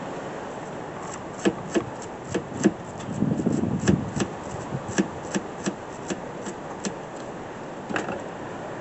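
Irregular sharp clicks and knocks of small tools and parts being handled during hands-on mechanical work, with a short rubbing scrape about three seconds in.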